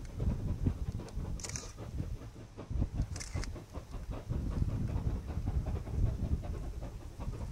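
Two QJ class 2-10-2 steam locomotives double-heading a train up a steep grade, their exhaust beats chuffing rapidly and out of step with each other, heard from far off.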